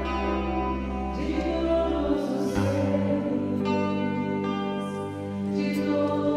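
Two women singing a Portuguese devotional song into microphones ('de todos os seres, de todos os reinos deste planeta'), over sustained instrumental accompaniment whose bass note changes a little past two seconds in.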